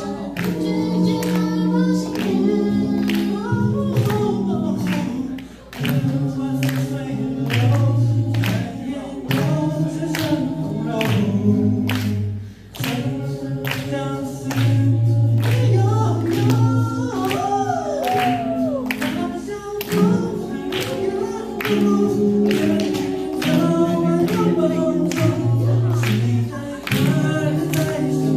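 Vocal group singing a slow song in layered harmony without instruments, over a steady percussive beat of about two strokes a second.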